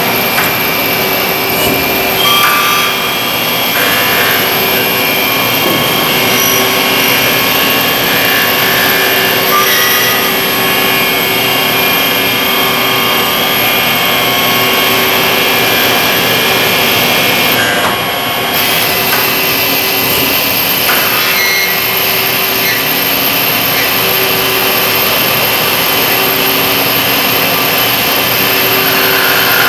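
Miyano ANX-42SYY CNC turning center running a cutting cycle: a steady mechanical whine with several held tones over a dense hiss of spindle and cutting noise, and the chatter of voices behind it.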